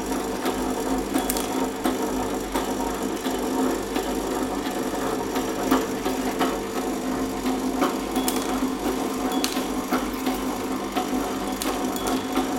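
Electronic component lead-cutting machine running with a steady motor hum and irregular sharp clicks as component leads are cut.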